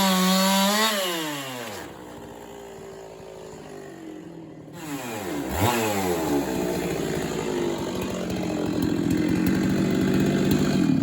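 Two-stroke chainsaw engine at high revs, dropping to idle about a second in. It idles for a few seconds, is revved back up around five to six seconds in, and is then held at high revs.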